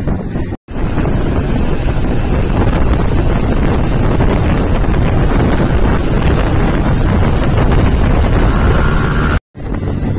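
Wind buffeting the microphone on a moving motorcycle, with the engine running underneath. The sound cuts out completely for a moment twice, about half a second in and near the end.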